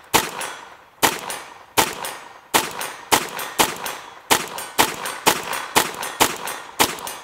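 Ruger 22 Charger .22 LR pistol firing a rapid semi-automatic string of about a dozen shots, roughly two a second, each followed by the ring of steel targets being hit.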